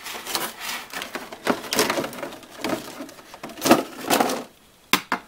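Stiff clear plastic clamshell packaging and its cardboard insert crackling and rustling as they are pulled apart and handled, followed by two sharp clicks near the end.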